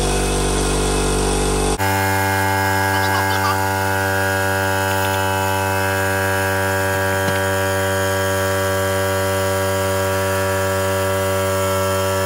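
Electric air compressor motor running with a steady, loud hum, its tone changing abruptly about two seconds in.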